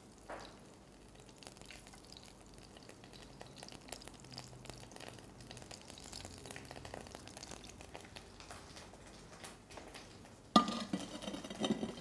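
Shrimp frying in olive oil in a non-stick pan: a faint, crackling sizzle as they are laid into the oil. A sharp knock comes near the end, followed by louder pan noise.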